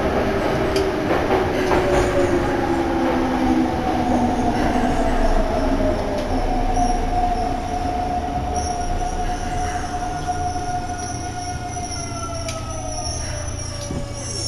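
Yokohama Municipal Subway Blue Line train running and slowing into a station, heard from inside the car: a steady rumble of wheels and running gear, with a whine that falls in pitch as the train brakes.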